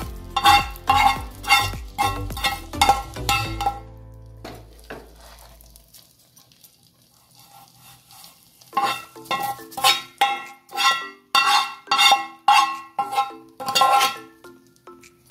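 Metal utensil knocking and scraping against a metal tempering pan as fried coconut and curry leaves are knocked out of it into a pressure cooker: short sharp clinks about two a second, pausing for several seconds in the middle, then a second run of clinks.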